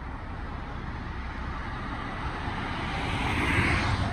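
Road traffic noise: a steady rush with a low rumble that grows gradually louder toward the end.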